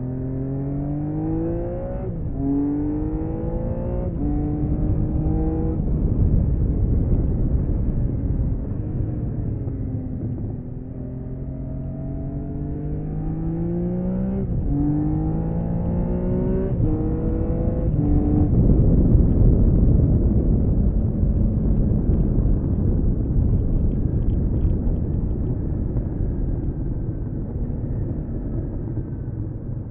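1979 Honda CBX 1000's stock-exhaust 1047 cc six-cylinder engine accelerating hard through the gears, its pitch climbing and dropping at each upshift. It eases off around ten seconds in, then pulls through three more quick upshifts. From about eighteen seconds a loud, steady wind rush over the engine takes over at speed.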